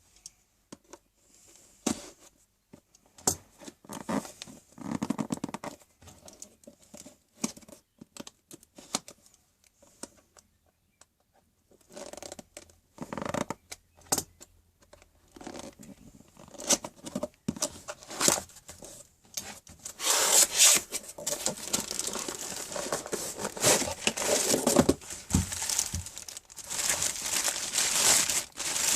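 Packaging being torn open and crumpled by hand, with scattered light knocks and clicks. The rustling gets denser and louder about two-thirds of the way through.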